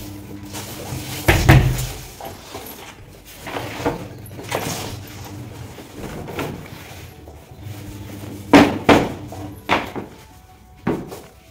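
A large black eyeleted sheet being shaken out and folded: a series of flaps and thumps, the loudest about a second and a half in and again around eight and a half to nine seconds, with smaller ones between.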